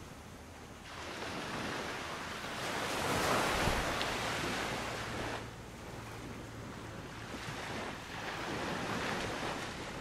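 Sea waves washing up on a beach, in two swells: a bigger one building about a second in, peaking around three to four seconds and dying away past five seconds, then a smaller one near the end.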